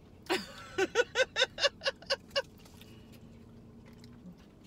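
A person laughing out loud: a high first whoop, then a quick cackling run of about eight short ha's, about four a second, that stops about two and a half seconds in.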